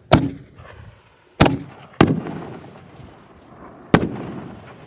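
Plasma Torch 1.4G reloadable canister firework shells going off: four sharp bangs, the first two about a second and a half apart, then one shortly after and a last one about two seconds later. Each bang is followed by a fading rumble.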